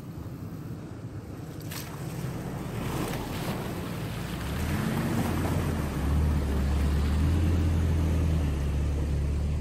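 2017 Toyota Tacoma pickup driving through a muddy creek crossing: water splashing and sloshing around the tyres over a steady engine hum. It grows louder as the truck comes close, the engine hum strengthening from about halfway.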